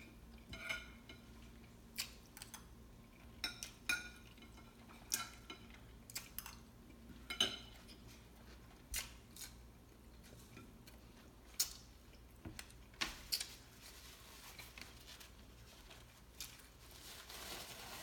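A metal fork clinking and scraping on a plate in scattered, irregular taps, some with a short ring. A soft rustle of a paper napkin runs through the last few seconds.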